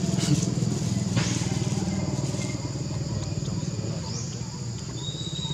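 A small engine running steadily with a low, fast, even pulse, over a steady high-pitched whine.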